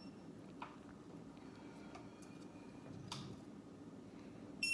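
A few faint clicks and light handling sounds over a low steady hum, then a high electronic beep starts right at the end.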